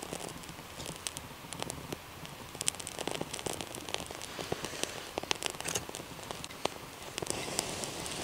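Dry bark and thin wood shavings catching fire and burning, with many small crackles and snaps over a soft hiss. About seven seconds in the hiss grows fuller and louder as the bundle of feather-stick shavings flares up.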